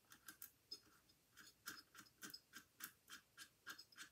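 Faint, irregular clicking, about three small clicks a second, from the metal parts at the head of a Husky 3-inch air cutoff tool being handled and fitted together.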